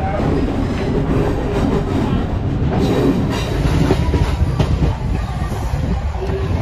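Chennai Mail passenger coaches rolling out of a station: a steady rumble of wheels on rails, with scattered clacks as the wheels run over rail joints and points.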